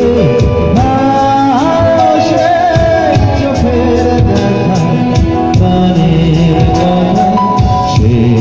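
Live band music played loud over a PA: a man singing to acoustic guitar, with a wavering, gliding melody line over a steady accompaniment.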